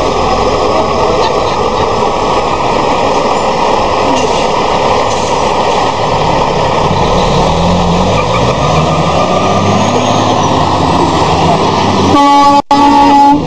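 Two heavy diesel semi trucks accelerating side by side, their engines climbing in pitch again and again as they pull up through the gears. About twelve seconds in comes a loud air horn blast, a steady chord of several tones.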